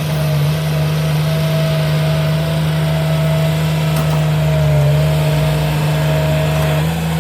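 Diesel engine of a heavy earthmoving machine running steadily at a constant pitch.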